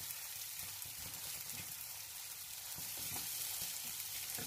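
Thick egg and tomato masala sizzling in a non-stick frying pan while a silicone spatula stirs it, with soft, irregular scraping strokes under a steady hiss.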